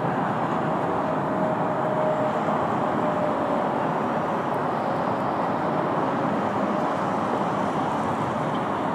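Douglas DC-3's twin radial piston engines running throttled back as it lands and rolls along the runway, a steady even noise with no distinct bangs or squeals.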